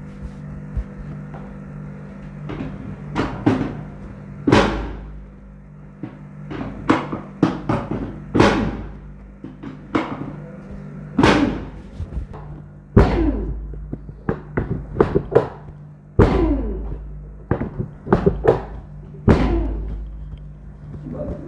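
An uneven series of about twenty sharp thumps or strikes, each ringing briefly, coming in clusters of two or three, over a steady low hum.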